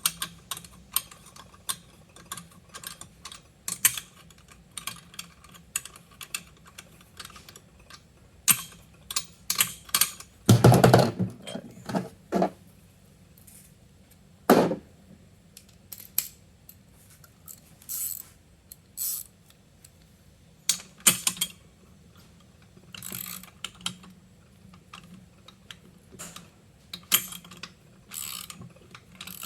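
Irregular clicks of a ratchet wrench tightening nuts on a bicycle engine kit's mount, with a few louder metal knocks between them.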